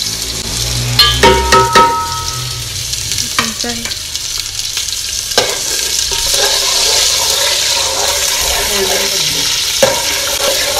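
Sliced onions sizzling in hot oil in a metal pot as they are tipped in and stirred with a metal spoon. A few clanks of the spoon on the pot, with a brief ringing, come about a second in. After that the frying settles into a steady sizzle that grows fuller.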